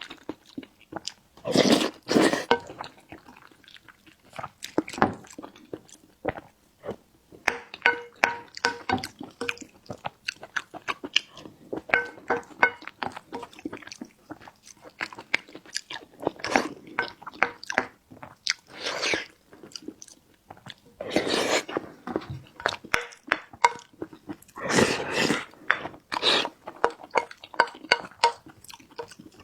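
Close-miked eating sounds: chewing and biting, a dense run of short clicks and smacks, with several louder, longer bursts scattered through.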